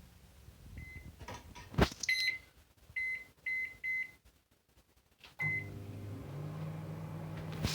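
Microwave oven being set: a knock, a series of short keypad beeps, then the oven starts running with a steady low hum about five and a half seconds in.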